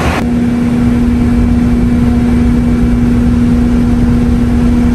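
A parked bus's engine idling, a steady hum of one fixed pitch over a low rumble.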